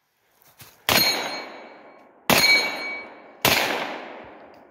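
Three single shots from a CZ Scorpion carbine, spaced a little over a second apart. Each trails off in an echo with a brief ring.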